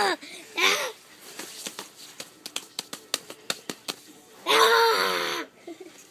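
Children laughing and shrieking: a short burst under a second in and a louder, longer one past four seconds. In between, a rapid run of clicks and taps from hands handling the phone.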